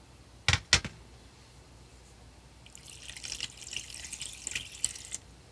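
Two sharp clicks, then about two and a half seconds of water spraying and spattering as a dirty lawnmower engine part is washed out.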